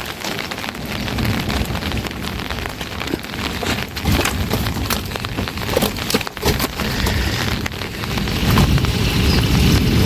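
Heavy rain falling, a steady hiss with many sharp drop impacts close by. A low rumble swells near the end.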